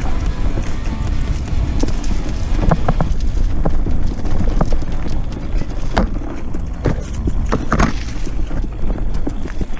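Wind buffeting the microphone of a camera on an electric trail bike riding over a dirt track, with scattered clicks and knocks from the bike rattling over the rough ground.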